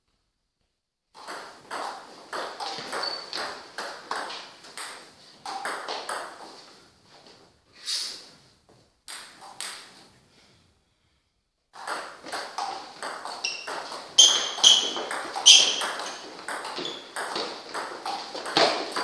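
Table tennis ball clicking back and forth off rubber bats and bouncing on the table in quick rallies of doubles play. A brief break of about a second falls a little past the middle, between one rally and the next.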